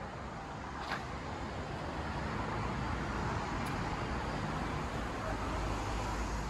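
City street traffic noise: a steady rushing hum with a deep rumble, growing a little over the first couple of seconds and then holding.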